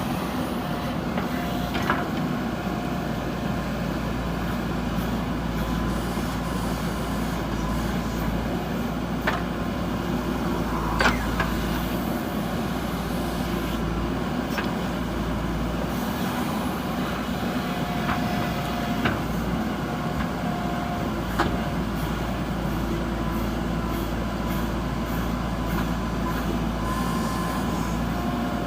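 JCB 3DX backhoe loader's diesel engine running steadily under working load, with a few sharp metallic knocks from the machine as it digs.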